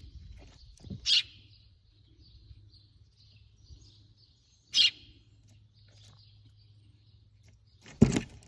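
Baby bird chirping: two short, loud, high chirps, one about a second in and one near five seconds, with faint cheeping in between. A sharp knock comes near the end.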